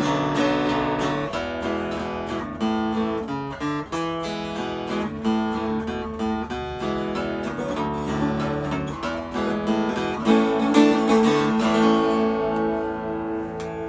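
Homemade acoustic baritone guitar with its sound hole in the side, played in a run of plucked notes and chords. Near the end a last chord is left to ring and fade.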